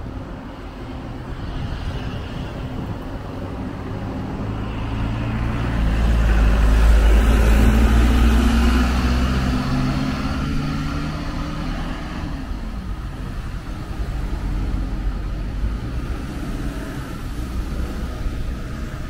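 A motor vehicle passes close by: engine rumble and tyre noise build to a peak about seven seconds in, then fade. Other traffic sounds steadily underneath.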